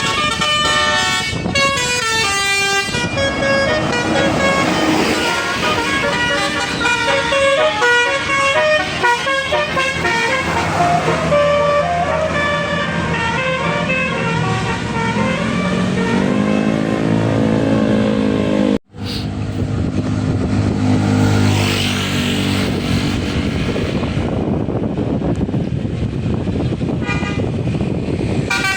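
Basuri telolet bus horns, multi-tone musical horns, playing quick tunes of stepping notes with several tones sounding at once. The sound cuts out briefly about two-thirds of the way through, then the horns carry on.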